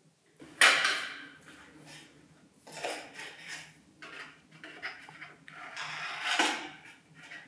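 Scissors cutting paper: a loud snip about half a second in, then further snips and paper rustling every second or two.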